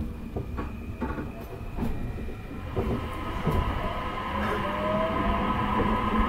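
E531 series electric train heard from inside the passenger car, moving off slowly: steady motor whine over a low rumble, with a few sharp clicks from the wheels on the track. A short rising tone comes about four and a half seconds in, and the sound grows louder toward the end as the train gathers speed.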